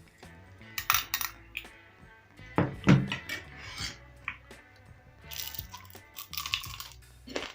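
Metal utensils and dishes clinking and knocking in short clusters, the loudest a heavier knock about three seconds in, over faint background music.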